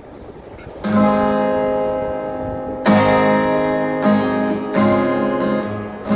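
Guitar strumming chords, coming in about a second in, with fresh strums every second or so that ring on between them.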